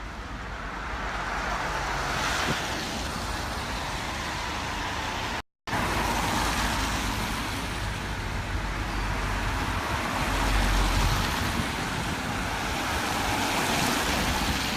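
Road traffic noise: passing vehicles swell and fade as a steady hiss and rumble. The sound cuts out for an instant about five and a half seconds in.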